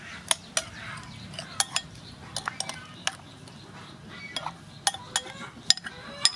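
Metal spoon clinking against a ceramic bowl while stirring a liquid tamarind sauce: a dozen or so sharp, irregularly spaced clinks.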